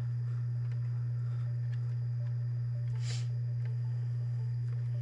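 A steady low hum throughout, with a short scrape or rustle of parts being handled about three seconds in and a few faint clicks.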